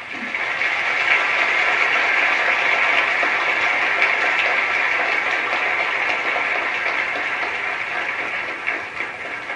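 Audience applauding: a dense patter of many hands clapping that swells within the first second and thins out near the end.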